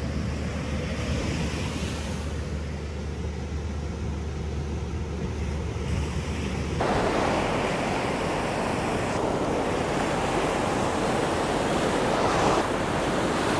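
Ocean surf breaking and washing up the beach, with wind buffeting the microphone. About halfway through the surf gets suddenly louder and fuller, as the sound moves to the water's edge.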